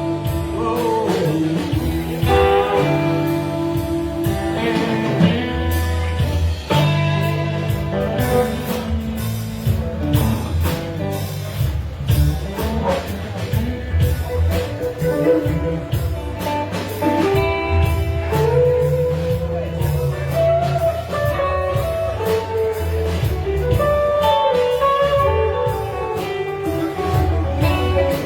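Live band playing a blues number, guitar lines over a steady bass-heavy groove.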